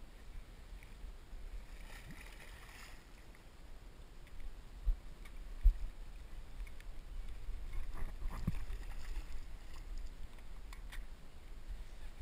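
Hooked striped bass splashing at the water's edge as it is brought in and landed by hand on the rocks, with water sloshing under a low rumble. Two dull thumps about five seconds in are the loudest sounds, and a few sharper splashes and clicks come about two thirds of the way through.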